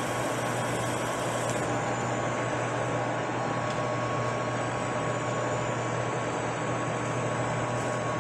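Metal lathe running steadily with a rifle barrel spinning in its chuck: a constant hum with thin steady tones above it.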